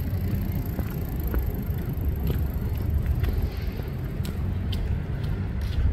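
Steady low rumble of suburban street ambience, with scattered light clicks and ticks over it.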